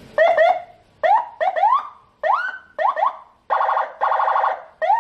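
Senken CJB100BD electronic vehicle siren sounding a run of short rising whoops, about six, then switching to a rapid buzzing warble and starting a long held tone near the end.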